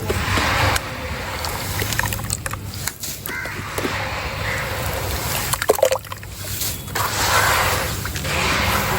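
Water poured onto dry sand-and-cement pieces, splashing and trickling in several separate pours, with a few sharp clicks between them. A steady low hum runs underneath.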